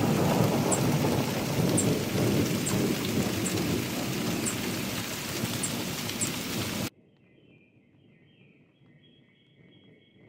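Thunderstorm: heavy rain with rumbling thunder, cut off abruptly about seven seconds in, leaving only a faint high-pitched buzz.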